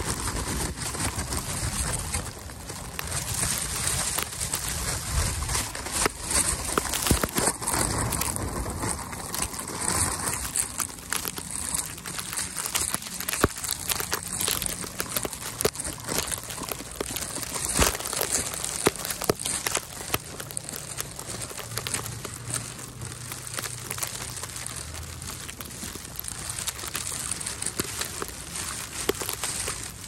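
Footsteps crunching in snow: a steady run of irregular crunches and crackles over a constant hiss.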